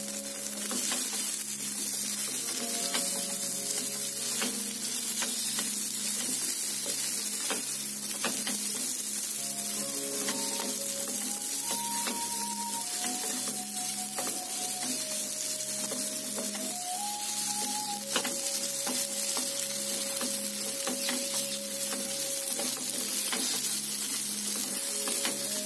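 Oil sizzling steadily as spiced wheat flour balls shallow-fry in a nonstick pan, with a wooden spatula stirring and scraping against the pan now and then.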